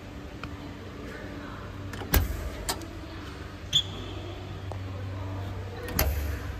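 Paddle latches and doors of a soundproof generator enclosure being worked: a sharp clunk about two seconds in as a door is unlatched and swung open, a few lighter clicks, and another latch clunk near the end, over a steady low hum.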